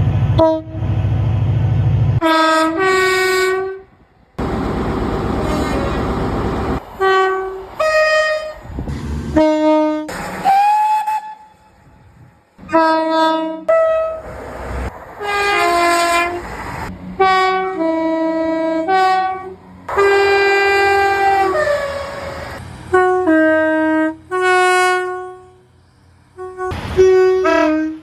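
A run of different train horns cut one after another, mostly short blasts, many of them stepping between two notes, with one long blast and one horn rising into pitch as it sounds. Rumbling train noise from passing trains lies between some of the blasts.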